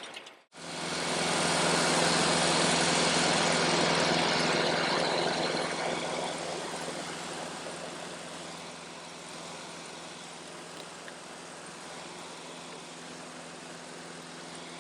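Tractor engine running a bush hog (rotary cutter), a steady engine hum under a loud rushing noise. The sound starts suddenly about half a second in, is loudest for the first few seconds, then eases to a steady level.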